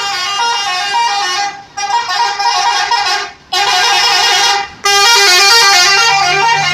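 An Indonesian bus's 'telolet' musical horn, a multi-tone horn playing a stepping, tune-like run of notes. It comes in several long, loud blasts, breaking off briefly just under two seconds in, around three and a half seconds, and near five seconds.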